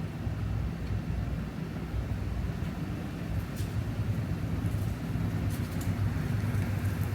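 Steady low rumble of a vehicle engine running, with a few faint light ticks in the second half.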